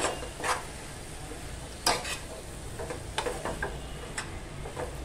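A spatula stirring and turning chopped taklya leaves in a hot frying pan over a faint sizzle, with a handful of scattered scrapes and clicks against the pan.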